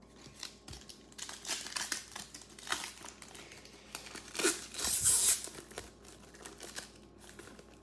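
Crinkling and rustling of plastic trading card packaging while cards are handled, in irregular bursts with the loudest crinkle about four and a half to five and a half seconds in.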